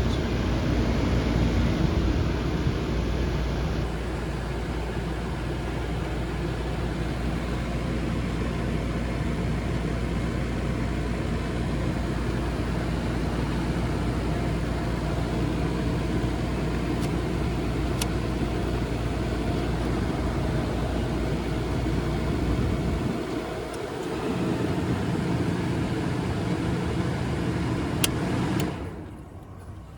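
1969 Westinghouse Deluxe Mobilaire 8,000 BTU room air conditioner running on high fan with its compressor on, on its first start after sitting unused: a steady hum under the rush of the fan. The deepest part of the hum drops out about three-quarters of the way through, and the sound falls away sharply just before the end.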